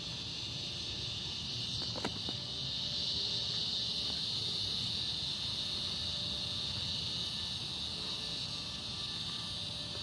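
Cicadas droning in a steady, continuous high-pitched chorus that grows a little louder a few seconds in, then eases slightly. A single light click about two seconds in.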